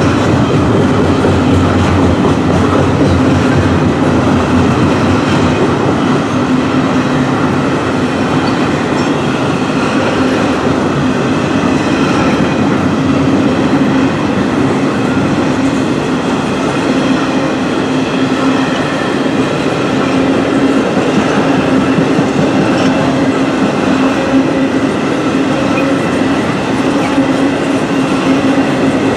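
Double-stack intermodal well cars of a freight train rolling past: a loud, steady rumble of steel wheels on the rails, with a few faint steady ringing tones above it.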